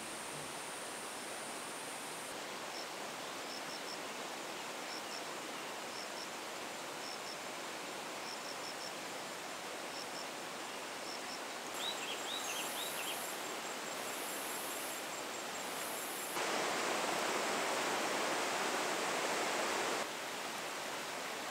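Mountain stream flowing, a steady rushing hiss of water, with a few short bird chirps about twelve seconds in. The water sound steps up louder for a few seconds near the end, then drops back.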